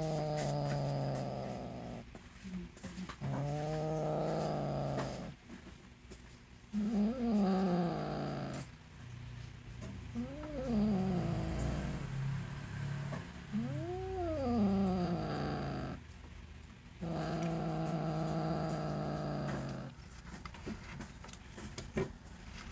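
Domestic tabby-and-white cat with a mouse held in its mouth, giving about six long, low growling yowls with short pauses between, several rising and then falling in pitch. This is the possessive growl of a cat guarding freshly caught prey.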